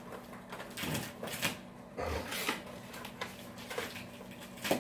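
Gift-wrapping paper being rustled and torn by hand in short, irregular crinkling bursts as a present is unwrapped, with a soft thump about two seconds in.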